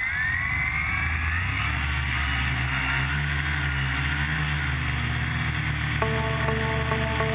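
Electric motors and propellers of a homemade H-frame quadcopter spooling up with a rising whine for takeoff, then running steadily in flight. Music comes in about six seconds in.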